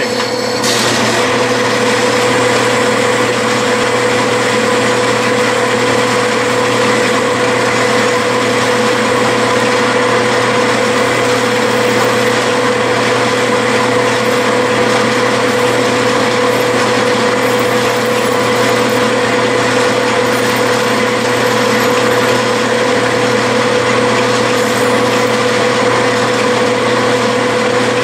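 Small metal lathe running steadily, with an even hum and whine, while a cutoff tool plunge-cuts grooves into the spinning stator of a model dynamo. The sound comes on sharply within the first second and then holds unchanged.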